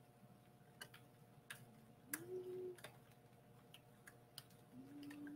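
Faint steady whine of an electric pottery wheel spinning, with scattered sharp clicks and scrapes as a wooden-handled trimming tool cuts rings into a leather-hard clay pot. Two short low tones sound, one about two seconds in and one near the end.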